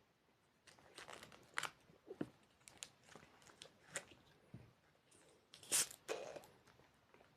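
Eating and handling food up close: a run of short, sharp crunching and crackling sounds at irregular intervals, the loudest a little under six seconds in.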